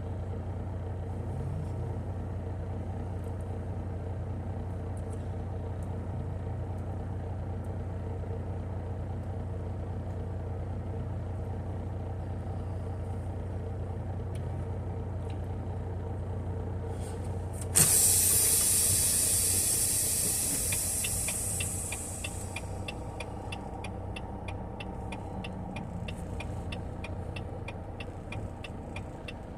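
Semi truck's diesel engine idling steadily, with a sudden loud burst of air-brake hiss about eighteen seconds in that fades away over a few seconds. A quick, even light ticking follows.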